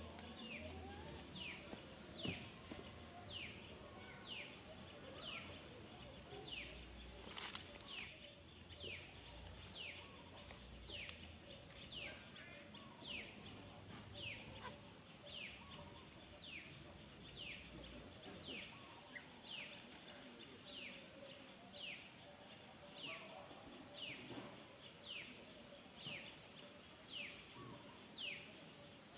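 A bird repeating one short, high note that falls in pitch, about one and a half times a second, steady and unbroken, faint against low outdoor background noise.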